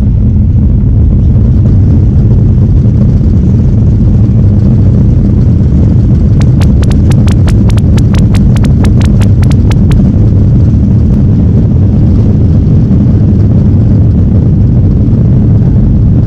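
Airliner cabin noise: a steady, loud low rumble of the jet engines heard from inside the cabin. From about six and a half to ten seconds in, a quick run of sharp clicks, about five a second, sounds over it.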